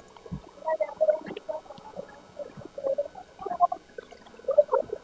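Soft, irregular rustling of an abaya's fabric as it is held up, shifted and handled, with a few small clicks.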